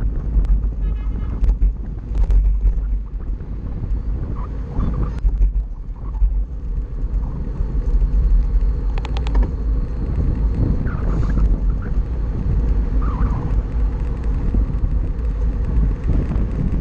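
Wind buffeting the microphone of a camera on a moving bicycle, a steady low rumble mixed with tyre and road noise. A quick cluster of sharp clicks comes about nine seconds in.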